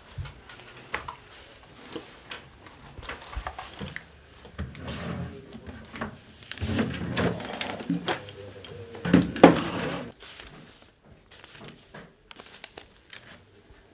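Rummaging through a small cabinet drawer, things being moved and handled: scattered rustles, clicks and knocks. The sound is busiest in the middle, with two sharp knocks about nine seconds in.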